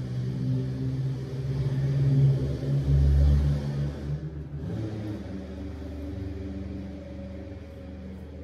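Low engine rumble of a motor vehicle, swelling to its loudest about two to three seconds in and then easing off.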